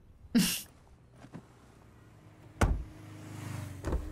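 A car door shut with a solid thump about two and a half seconds in, followed by a low steady hum and a second, softer thump just before the end.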